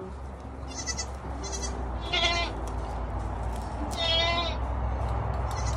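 Goats bleating: three separate bleats, a faint one about a second in, then louder ones about two and four seconds in.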